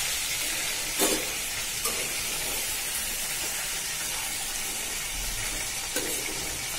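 Hot oil sizzling steadily in a kadhai as fried chicken pieces are lifted out with a steel slotted spoon. A few short clinks of the spoon on the metal, the loudest about a second in.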